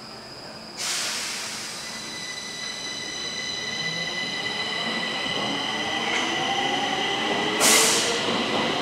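Stockholm metro train in the underground station: wheels squealing in several steady high tones over running noise that sets in about a second in. Later a lower whine rises in pitch as the train gathers speed, and a short loud rush of noise comes near the end.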